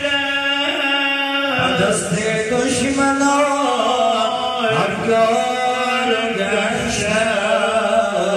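Men singing a Dari naat, a devotional song, unaccompanied, in long held, wavering notes.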